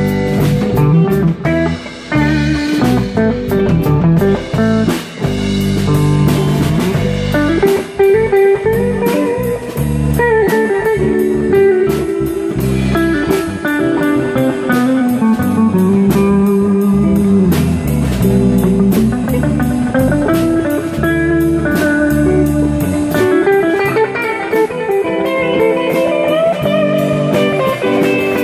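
Live band playing an instrumental passage: electric guitars over bass guitar and a drum kit, with a guitar lead line of sliding, bending notes.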